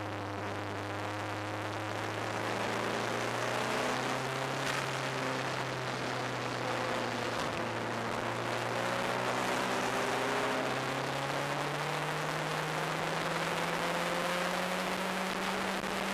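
Open-cockpit track car's engine heard from onboard under heavy wind rush: it holds a steady note for several seconds, then climbs steadily in pitch as the car accelerates.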